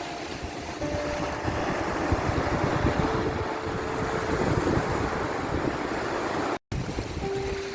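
Sea recording: waves washing, with wind buffeting the microphone and a faint steady hum that shifts in pitch now and then. A split-second dropout to silence comes a little past six seconds in.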